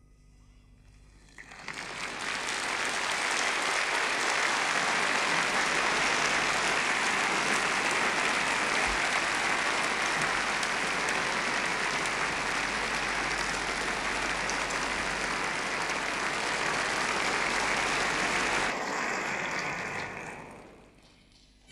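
Large audience applauding: it swells in about a second and a half in, holds steady, and dies away near the end.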